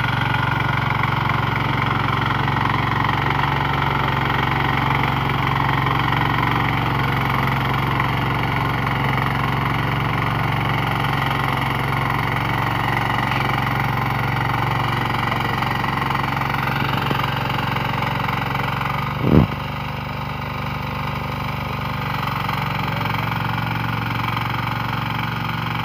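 Walk-behind power tiller's single-cylinder engine running steadily under load as its rotary tines churn through soil. A brief loud thump about three-quarters of the way through.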